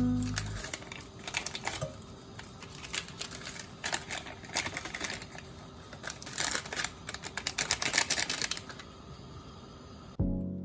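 Bursts of rapid light clicks and taps, in clusters, over a faint steady hum.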